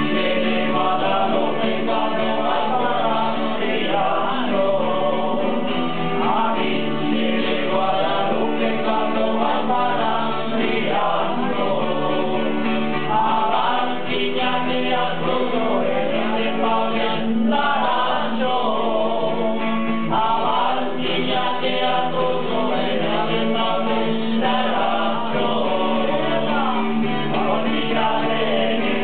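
Men singing together to a strummed acoustic guitar, in a steady unbroken song.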